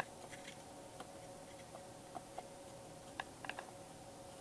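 Quiet workbench room tone with a steady faint hum and a few light ticks and taps from small parts being handled while soldering a circuit board, clearest past the middle.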